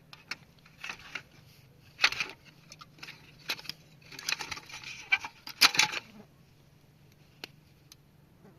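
Small hard parts clicking, rattling and scraping as they are handled and moved about, in irregular bursts for about six seconds, then a single click near the end.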